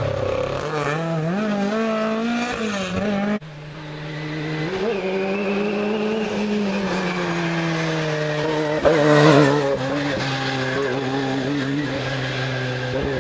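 Historic rally cars running hard on a tarmac stage. First a Ford Escort Mk1's engine revs up and down through a hairpin and is cut off abruptly a few seconds in. Then a Ford Sierra's engine note builds on the approach and is loudest as it passes, about nine seconds in.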